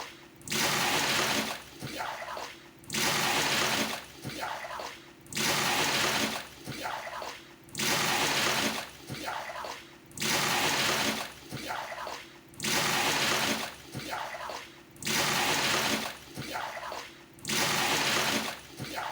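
Water moved with a dipper in a traditional Indonesian bathroom tub (bak mandi), in a steady cycle: a splash of about a second roughly every two and a half seconds, with quieter sloshing between.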